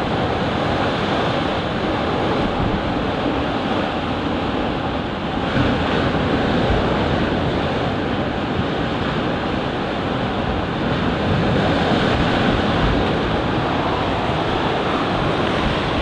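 Choppy sea waves washing and splashing over low concrete breakwater slabs in a steady surf, with wind buffeting the microphone.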